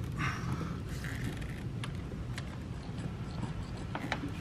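Gloved hands fitting an intercooler charge pipe and its couplers in an engine bay: scattered small clicks, rubs and creaks over a low steady hum.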